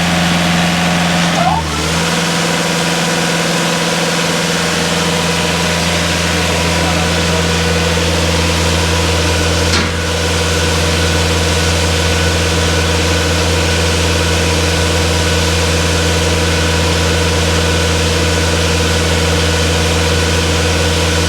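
Farm machinery engine running steadily with a constant hum. About two seconds in there is a brief dip with a short change in pitch, and another brief break near the middle.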